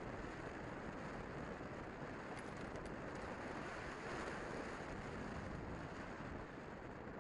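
Steady rush of airflow over the microphone of a glider-mounted camera as the hang glider flies.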